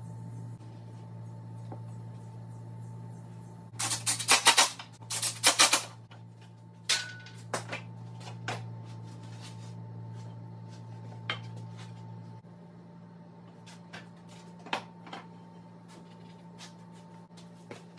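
Workshop handling sounds: two short runs of rapid clicking a few seconds in, then scattered clicks and knocks of tools and plywood being set down and moved, over a steady low hum.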